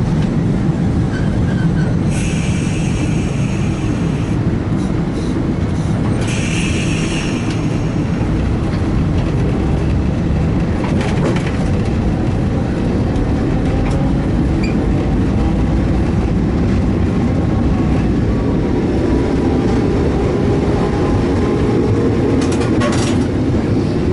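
Old streetcar running on street track, heard from inside the driver's cab: a steady low rumble of wheels and running gear, with two brief high squeals in the first seven seconds, a few clicks around the middle and a whine rising in pitch near the end.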